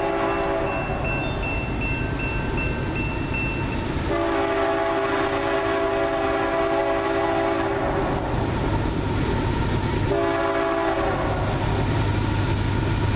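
Third-generation Nathan K5HL air horn on a Union Pacific GE AC4460CW locomotive sounding the grade-crossing pattern: a long blast ending about half a second in, a second long blast of about four seconds, then a short blast about ten seconds in, over the steady rumble of the approaching train.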